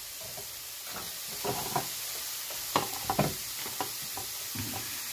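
Sliced sausage and zucchini noodles sizzling in a frying pan, a steady hiss, with several light knocks of kitchenware being handled, the loudest a few around the middle.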